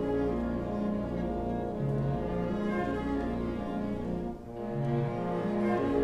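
Opera orchestra playing, with cellos and basses carrying a line of held notes under the strings. The music thins briefly about four and a half seconds in, then goes on.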